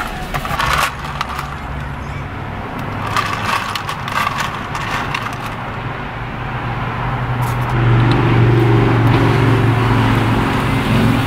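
Car engine and road noise heard from inside the cabin, with scattered light crackles. About eight seconds in, a steadier, louder engine drone sets in as the car pulls away.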